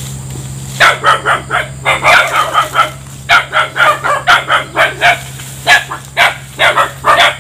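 A dog barking rapidly, a string of short barks and yips about three a second, starting about a second in. A steady low hum runs underneath.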